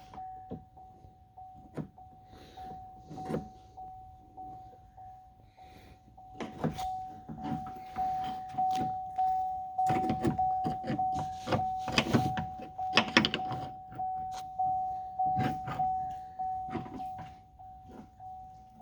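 Scattered clicks and knocks of the truck's door-handle parts being handled and fitted against the door, busiest in the middle, over a steady high-pitched tone.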